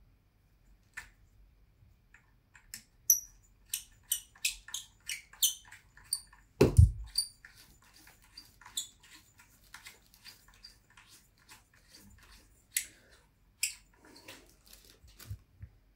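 Threaded joints of a gooseneck phone holder being twisted apart and screwed back together: a run of short squeaks and clicks, thinning out later, with one louder thump about seven seconds in.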